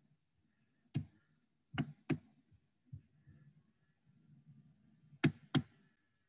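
Sharp clicks from operating a computer: a single click about a second in, a quick pair just before two seconds, a faint one at three, and a louder quick pair near the end, over quiet room tone.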